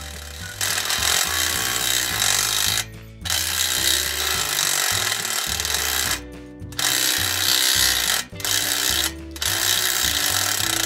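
Cordless 10.8 V impact driver (HiKOKI WH12DD) hammering as it drives a 32 mm hole saw through steel angle. The noise comes in several long bursts broken by brief stops.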